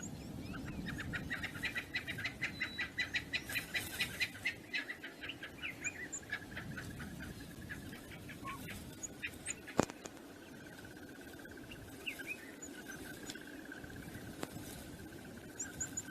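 A bird calling a fast run of short, repeated notes for about six seconds over wind noise, followed a few seconds later by a single sharp click.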